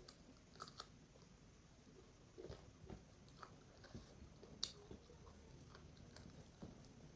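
Faint chewing and biting of food, with scattered wet mouth clicks and a few soft knocks, and one sharper click a little past the middle.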